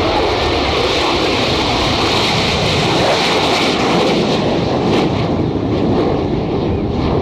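Aircraft engine noise from a plane flying at an air show, a steady loud rush without distinct changes.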